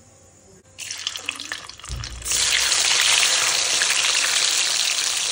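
Paneer cubes hitting hot mustard oil in a kadai and frying. A sizzle starts about a second in, then there is a short low thump about two seconds in, after which the sizzling turns loud and steady.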